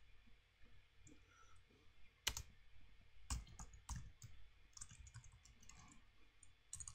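Faint clicking of computer keyboard keys being typed, with a few sharper keystrokes around the middle.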